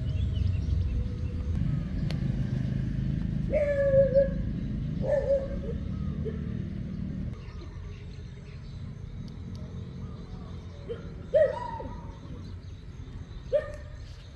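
A cat meowing in four short, high calls, over a low rumble that drops away about seven seconds in.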